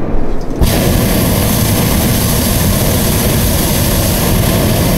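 Hot air balloon's propane burner firing: a loud, steady hiss that switches on abruptly about half a second in, over a low rumble.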